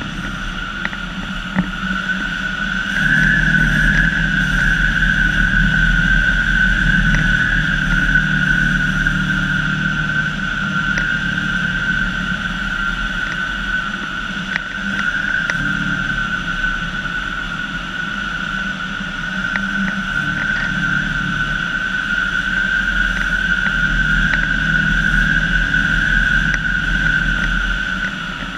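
Rushing airflow noise on the microphone of a glider in fast flight on a high-speed landing approach, with a steady high-pitched whine held over a low rumble.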